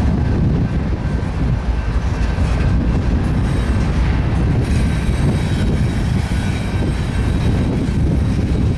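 Double-stack intermodal train's well cars rolling past close by: a steady, loud rumble of steel wheels on the rails.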